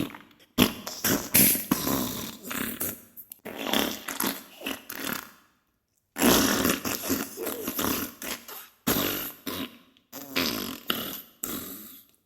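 Diarrhea sound effect: a run of sputtering fart bursts broken by short gaps, with a pause of about half a second midway.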